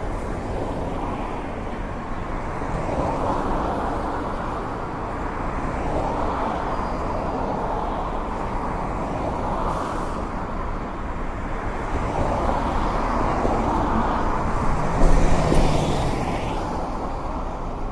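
Street ambience of road traffic: a continuous rush of passing vehicles that swells and fades every few seconds, with a louder vehicle going by about fifteen seconds in.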